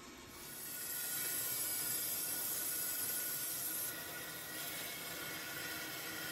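Steady hiss of water rushing through a hot-water boiler's fill valve and copper supply piping as the system fills under city pressure. It builds over the first second and eases a little about four seconds in.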